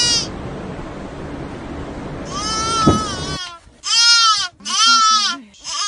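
High-pitched animal cries with a wavering, arched pitch. One long cry comes about two seconds in over a steady background noise that stops suddenly. Then two shorter cries follow about a second apart, with another starting at the end.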